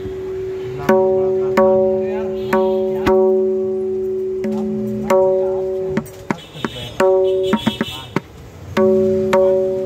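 A 6.5-size dayan (right-hand tabla) struck with the fingers: a series of open strokes that each ring on at a clear, steady pitch, with a quick run of short damped taps in the middle.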